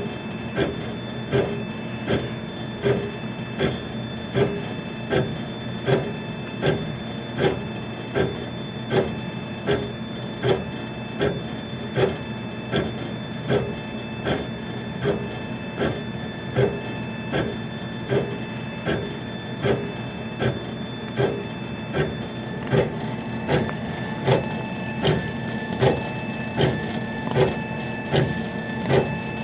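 Chinese laser engraver raster-engraving leather: a steady motor whine and hum with an even knock about every three-quarters of a second as the engraving head sweeps back and forth across the holster.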